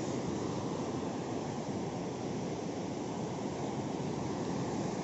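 The Suru River rushing fast and heavy under a footbridge: a steady, even noise of turbulent water in strong flow.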